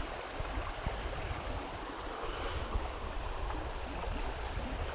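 Creek water flowing, a steady even rush of running water.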